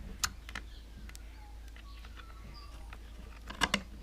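A few light clicks and taps from metal parts and tools being handled on the engine, over a low steady hum; a quick pair of clicks comes near the end.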